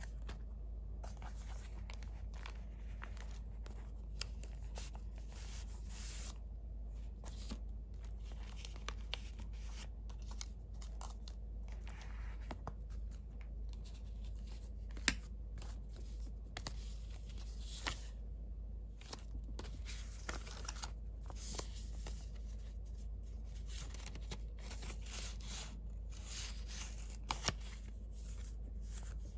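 Paper handling: the paper pages, pockets and cards of a handmade junk journal rustling and sliding as they are turned and pulled out, with scattered light clicks and taps and a sharper tap about halfway through and twice near the end. A steady low hum lies underneath.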